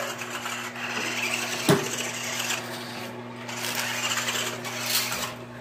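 Small electric motor of a toy RC car whirring as it drives, the pitch and level wavering, with a single knock about a second and a half in.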